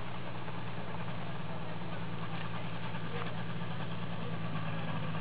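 Ultralight trike engine running steadily at low throttle while the trike taxis on the ground after landing.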